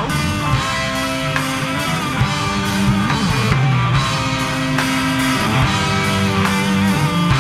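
Rock band playing live in an instrumental passage with no vocals: electric guitars holding sustained notes over bass and a drum kit keeping a steady beat.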